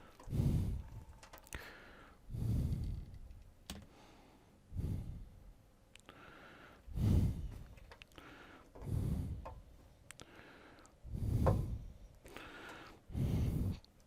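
A man breathing close to the microphone, seven breaths at about one every two seconds, with a few faint clicks between them.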